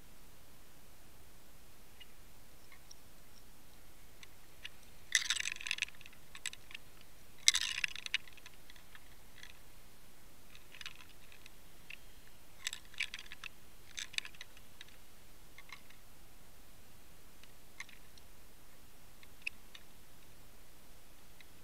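Irregular clusters of sharp clicks and crackles picked up underwater by a camera in its housing, over a steady faint hiss. The loudest bursts come about five and seven and a half seconds in.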